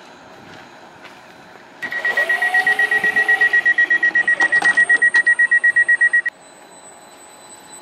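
Door-closing warning beeper on a Greater Anglia Class 755 train: a loud, rapid beeping at one high pitch for about four and a half seconds, warning that the doors are closing. It cuts off suddenly as the doors shut.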